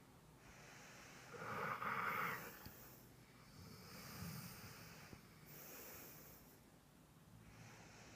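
Slow, rhythmic snoring: about four drawn-out breaths, the loudest about two seconds in.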